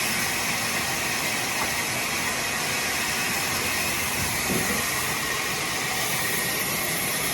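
A steady, loud hiss of noise with no rhythm or pitch.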